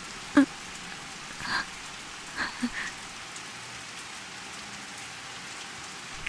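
Steady rain falling, an even hiss, with a sharp click about half a second in and a few faint short sounds a little later.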